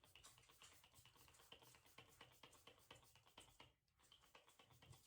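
Near silence, with faint scattered small clicks and handling noises.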